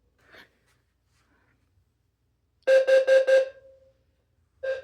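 Two fire alarm horns, one a Wheelock low-frequency sounder, both sounding code 4 (temporal-4). One gives a rapid burst of four beeps a little past halfway. The other starts its own four-beep burst just before the end, so the two are out of sync. Code 4 is the carbon-monoxide alarm pattern.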